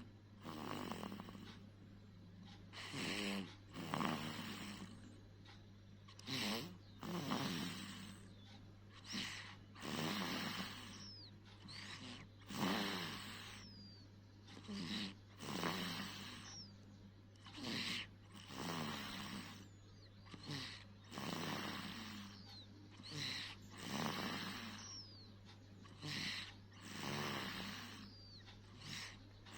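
Snoring in sleep, with a rough snore on each in-breath and out-breath and a breath cycle about every two to three seconds. A steady low hum runs underneath.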